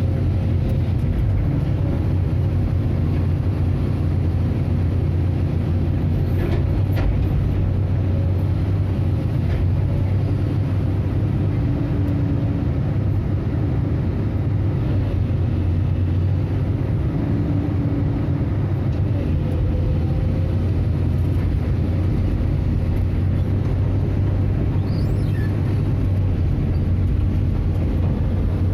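Excavator's diesel engine running steadily, with a continuous low hum, heard from the operator's cab. A few faint clicks come about a quarter of the way in.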